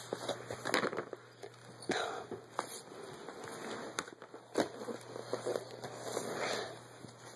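Close rustling and crackling with scattered sharp knocks: handling noise as the camera is moved and rubbed against clothing.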